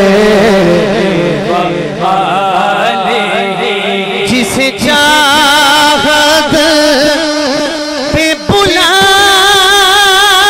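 A man singing a naat, an Urdu devotional song, solo into a microphone. He runs quick, wavering ornamented phrases at first, then holds long sustained notes with vibrato, with a short break near the end.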